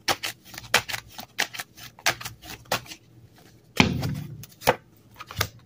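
A deck of tarot cards being shuffled by hand: a run of quick clicks as the cards flick together, with a dull thump about four seconds in.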